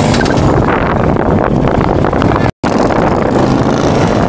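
Motorcycle engines running as cruisers ride slow-speed turns, with wind buffeting the microphone. The sound cuts out for an instant a little over halfway through.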